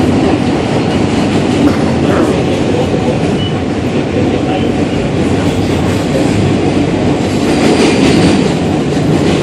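New York City N subway train running over a bridge, heard from inside the car: a loud, steady rumble of wheels on rails.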